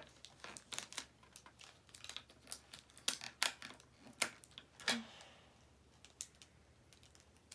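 Irregular clicks and crinkles of hands handling a tape-wrapped cardboard toilet-paper tube with a balloon stretched over its end, with a soft rustle about five seconds in.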